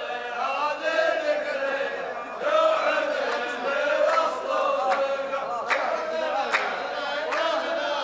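Rows of men chanting a line of muhawara (tarouq) poetry together in unison. Rhythmic hand claps join about two and a half seconds in, a little over one a second.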